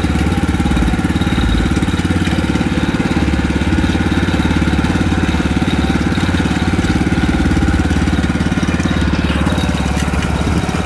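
Outrigger fishing boat's engine running steadily under way, with the hiss of water rushing past the hull.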